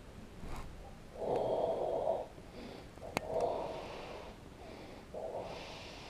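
A person breathing heavily, three loud breaths about two seconds apart, with a single sharp click just after three seconds in.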